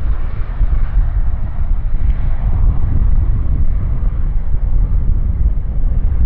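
Embraer 170 jet airliner's twin GE CF34 turbofans at take-off power as it lifts off and climbs away, a loud, steady deep rumble with wind noise on the microphone.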